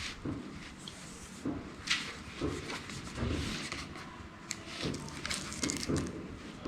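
Handling noise: scattered light clicks, taps and soft rubbing or rustling at irregular moments.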